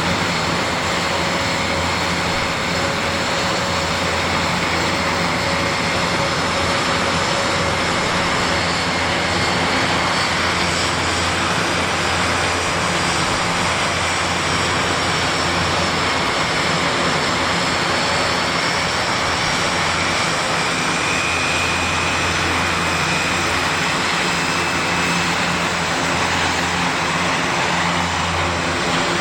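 Airbus A400M's four TP400 turboprop engines running steadily, a loud even drone with a steady hum and a faint high whine.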